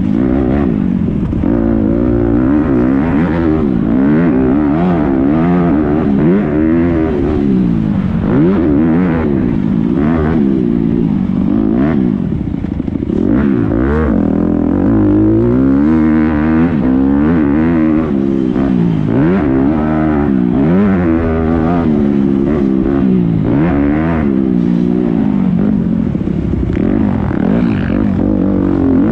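Motocross dirt bike engine heard from on board, revving up and falling off again and again as the rider works the throttle through corners and jumps, with a brief drop in throttle about twelve seconds in.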